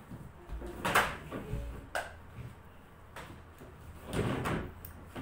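Small plastic child's chair knocking and scraping on the floor as it is moved into place: a sharp knock about a second in, a lighter knock a second later, and a short scrape a little past four seconds.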